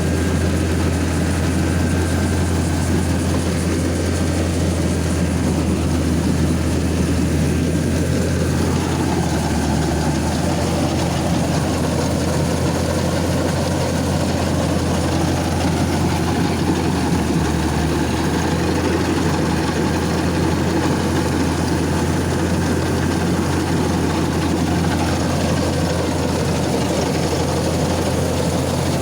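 Combine harvester's diesel engine running steadily, a heavy low drone with machinery noise over it.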